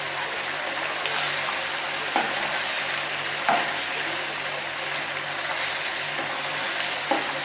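Meatballs in sauce frying in a pan over a gas flame, with a steady sizzle, while a spatula stirs them and knocks against the pan three times.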